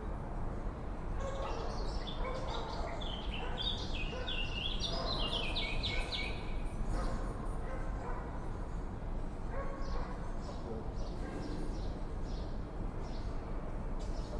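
Birds calling and singing over a steady low background rumble, with a quick run of clear notes stepping down in pitch in the middle and scattered chirps around it.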